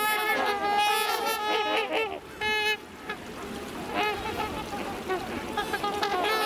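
A flock of swans honking, many overlapping horn-like calls in bouts, busiest in the first two seconds and again near the end, with mallards among them.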